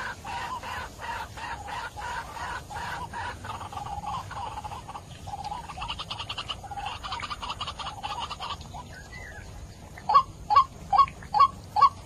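White-breasted waterhen calling: a long run of rapid, pulsing croaking notes. After a short pause about nine seconds in, it gives a string of louder, short clipped notes at about two to three a second.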